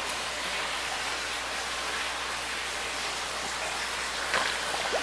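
Steady splashing hiss of water running into the koi tank of an aquaponic system. A few faint, short rising squeaks come near the end.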